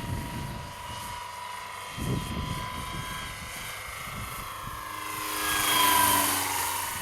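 Large electric RC scale helicopter in flight: a steady electric motor whine over the four-blade main rotor's noise. It swells louder about five to six seconds in, then eases off.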